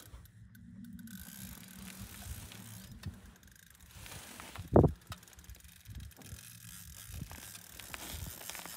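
Ice fishing reel clicking and ratcheting as a big fish is played through the hole. A short louder thump comes a little before the middle.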